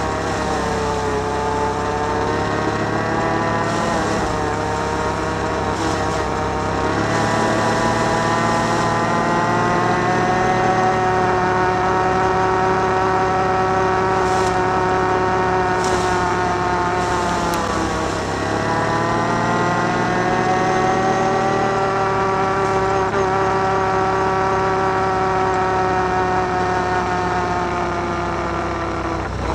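Can-Am Outlander 1000 ATV's V-twin engine running under way at a fairly steady pitch. Its revs dip briefly about 4 seconds in and again past the middle as the throttle eases, then climb back.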